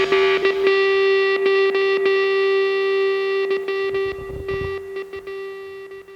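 Background rock music: a distorted electric guitar holds one long note that slowly fades out near the end.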